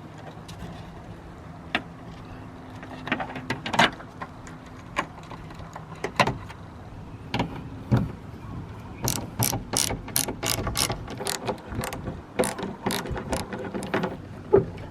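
Hand ratchet clicking in runs while working the side mirror's mounting fasteners loose, among scattered knocks and clicks of tools and parts.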